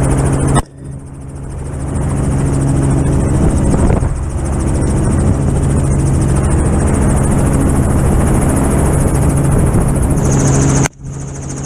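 Helicopter rotor noise running steadily in the open cabin doorway. Two sharp rifle shots break through it, one about half a second in and one near the end, and after each the rotor noise drops away and builds back up.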